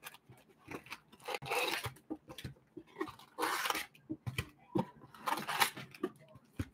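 Foil-wrapped trading-card packs crinkling and a cardboard box rustling as the packs are pulled out by hand and stacked. The sound comes in several short crackling bursts with small knocks between them.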